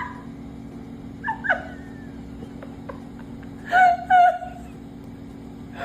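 A dog giving a few short, high yips and whines, the loudest two close together about four seconds in, over a steady low hum.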